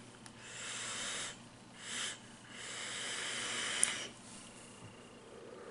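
Air hissing through a rebuildable dripping atomizer on a vape as it is drawn on: a pull of about a second, a short puff, then a longer pull of about a second and a half that ends with a sharp click.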